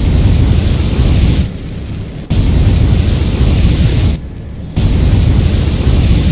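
Flamethrower firing in three blasts of rushing roar, each one to two seconds long, with short breaks between them.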